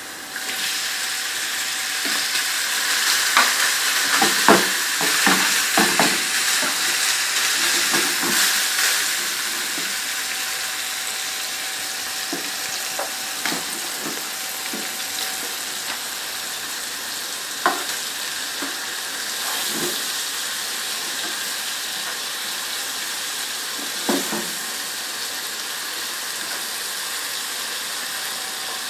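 Chopped tomatoes sizzling as they go into hot oil with frying onions and spices in a frying pan. The sizzle jumps up at the start, is loudest for the first several seconds and then settles to a steady hiss as the moisture cooks off. A spatula clicks against the pan now and then while the mixture is stirred.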